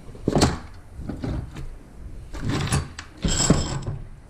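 Steel spring compressor being fitted onto a car's coil spring: a series of short metal clanks and rattles, the one near the end with a brief metallic ring.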